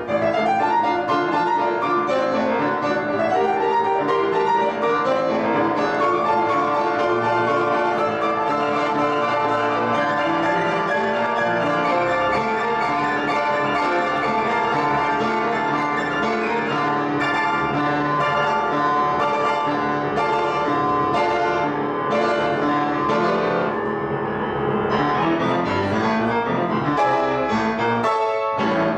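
Grand piano played solo, a steady flow of notes, closing with loud full chords near the end.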